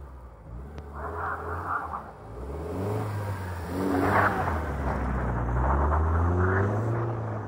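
BMW E36 engine revving hard as the car drifts sideways through snow, its pitch climbing and dropping several times. It grows louder about four seconds in as the car slides close by.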